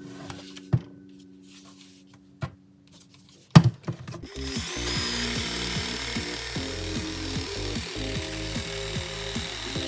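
A few clicks and knocks, the loudest about three and a half seconds in. Then, from about four seconds in, a DeWalt 20V MAX XR brushless cordless jigsaw runs steadily, cutting through wood.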